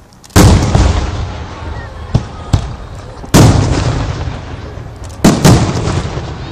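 Aerial fireworks shells bursting. There is a loud boom just after the start, two sharp cracks around two seconds in, another boom a little past three seconds, and a double boom past five seconds. Each bang fades away slowly.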